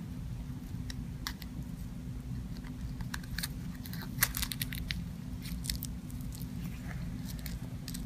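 Scattered small clicks and crackles as gloved hands handle a plastic surgical drainage bulb and thread and press the holder's locking tab, with the sharpest click about four seconds in, over a steady low hum.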